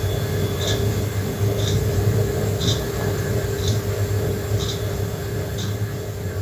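Gas stove burner running with a steady low roar, with a light tick repeating about once a second.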